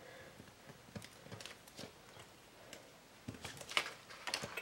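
Soft scattered clicks and rustles of masking tape being peeled and a clear acetate sheet and paper card being handled, with a few sharper taps and crinkles about three and a half seconds in.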